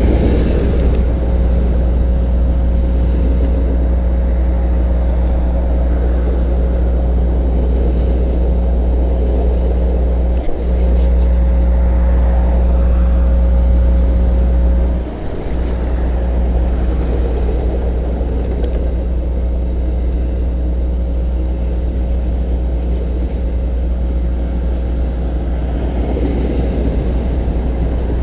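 Intermodal freight cars of a CN train rolling past, a steady low rumble of wheels on rail.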